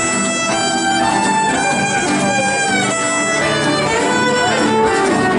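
Live acoustic folk-punk instrumental passage: a fiddle plays the lead melody over two strummed acoustic guitars, with no singing.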